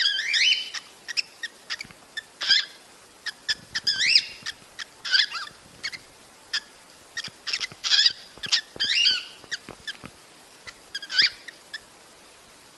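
Cockatiel mating calls: short chirps and rising whistled notes, one every second or so, with sharp ticks in between.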